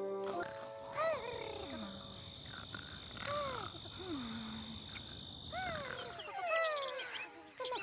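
Cartoon snoring sound effects: a series of squeaky, whistling snores that rise and then fall in pitch, over a steady high whine, with a cluster of quick chirps near the end.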